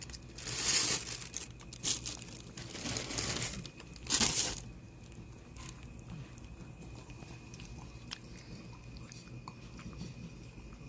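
Rustling and crinkling handling noise in four loud bursts over the first four and a half seconds, then only faint scattered clicks.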